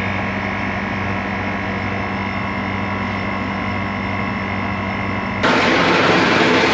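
Walk-in chiller condensing unit running with its newly fitted compressor: a steady electrical-mechanical hum with tones near 100 and 200 Hz. About five seconds in it switches abruptly to a louder, rougher running noise.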